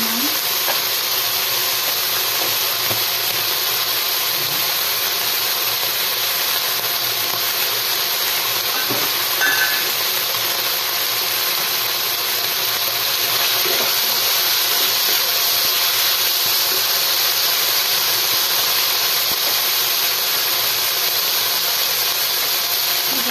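Flaked canned tuna and garlic frying in oil in a wok, giving a steady hissing sizzle.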